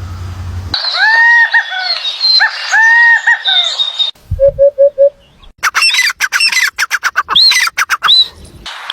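Bird calls in several abrupt segments: first a series of arching calls that rise and fall, then four short even notes, then a quick run of sharp clicks mixed with rising-and-falling calls.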